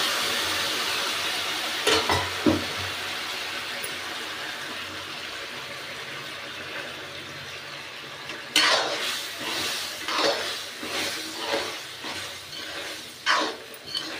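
Masala sizzling in a kadhai, the sizzle dying down after boiled macaroni and its water go in, with a couple of clinks about two seconds in. From about eight and a half seconds a metal spatula stirs the pasta, scraping against the pan in repeated strokes, roughly one a second.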